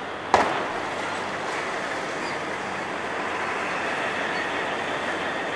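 Demolition machinery: a single sharp bang about a third of a second in, then the steady running of the wrecking-ball crawler crane with a constant rumble.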